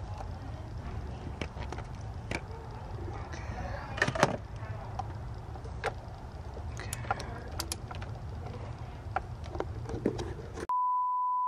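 Scattered metallic clicks and clinks of hand tools working on an engine's temperature sensor, over a low steady rumble. Near the end a steady high-pitched beep tone sounds for about a second.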